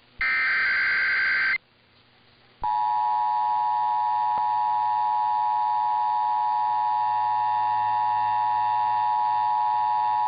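Emergency Alert System test signal: the last burst of the digital EAS header, then about a second's pause, then the steady two-tone EAS attention signal starting about two and a half seconds in and holding.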